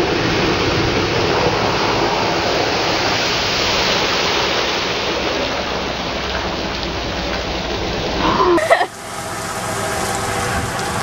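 Toyota Tacoma pickup ploughing through a flooded mud hole, its tyres throwing water and mud in a steady loud rush with the engine working underneath. Near the end the sound cuts abruptly to the truck's engine idling close by.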